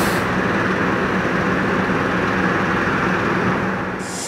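Steady, loud mechanical roar with a low hum underneath, from hot air balloon launch equipment: propane burners and petrol-engined inflator fans at work on the launch field.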